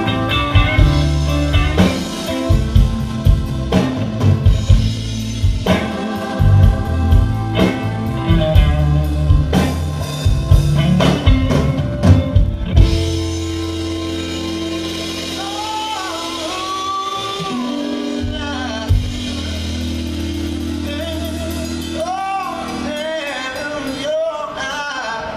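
Live blues-rock band playing loud, with drums, bass and electric guitars pounding for about the first half. About halfway through the band settles onto a long held chord, and a male singer sings sliding, drawn-out notes over it.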